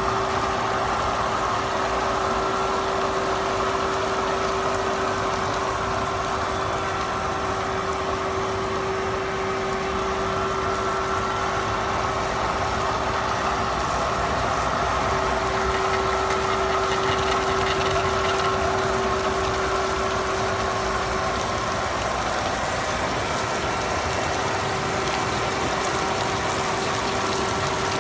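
Concrete-cutting machinery running steadily, with a constant mid-pitched hum.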